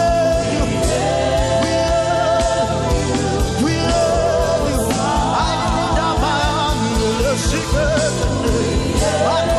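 Live gospel worship music: sung voices holding long notes with vibrato over a band with bass and a steady drum beat.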